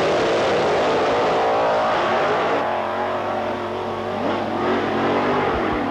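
Drag-racing funny car's engine at full throttle, launching and running away down the strip; loud for the first couple of seconds, then fading as the car gets farther off.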